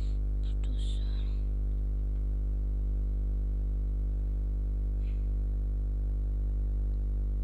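Steady low electrical mains hum with a buzz of overtones, picked up by the recording microphone. A brief soft hiss comes about a second in.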